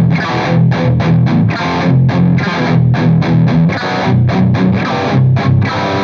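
Electric guitar through a Soldano SLO high-gain distortion pedal, its Deep switch on for a deeper low end, playing fast palm-muted chugging riffs: a run of short, tight, heavily distorted notes.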